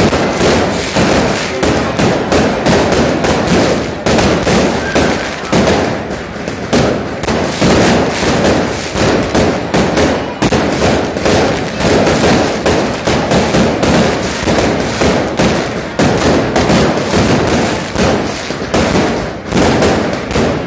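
Aerial fireworks bursting overhead in a dense, continuous barrage of loud bangs, several a second with no let-up.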